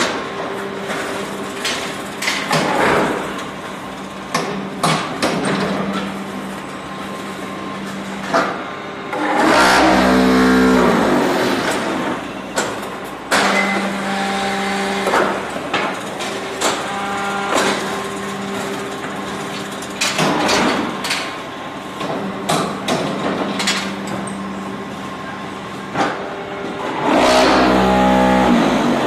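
Hydraulic and vibrating concrete block-making machine running through its cycle. A steady motor and hydraulic pump hum runs under metal clanks and knocks from the mould and pallets. Two louder buzzing, rumbling stretches, one about a third of the way in and one near the end, are the vibration compacting the blocks.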